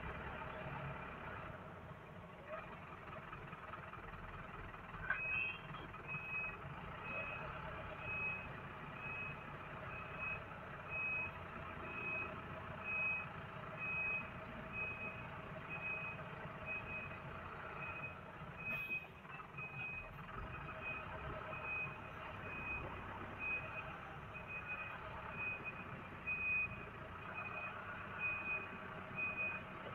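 An electronic vehicle warning beeper sounding a short high beep about twice a second, starting about five seconds in, over the low steady running of the vehicle.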